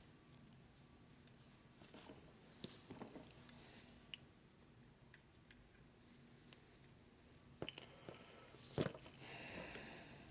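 Faint, scattered small metal clicks of a cotter pin and needle-nose pliers being worked on a brake caliper, with one sharper click about nine seconds in.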